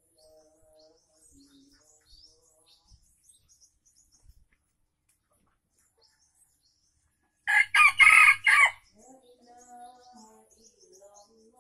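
A junglefowl F1 rooster crows once, a short, loud crow of just over a second, about two-thirds of the way through. Softer clucking follows it, and faint small-bird chirps sound before it.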